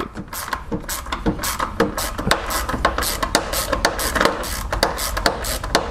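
Hand ratchet with a 10 mm socket clicking in quick, irregular runs as it is swung back and forth, backing out the screw that holds the radiator fan.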